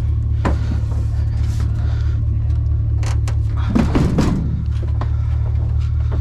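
A vehicle engine running with a steady low drone, with scattered knocks and a louder thump about four seconds in.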